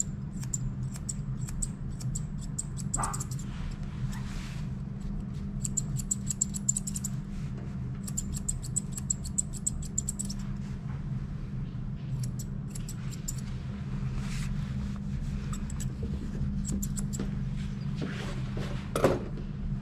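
Grooming shears snipping fur on a dog's paw, in quick runs of small sharp clicks separated by pauses, over a steady low hum. A short falling whine comes near the end.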